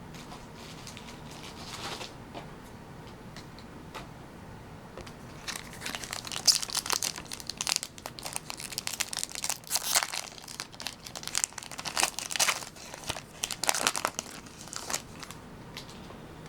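Foil wrapper of a Pokémon card booster pack crinkling and tearing as it is opened by hand, in a run of irregular crackly bursts starting about five seconds in.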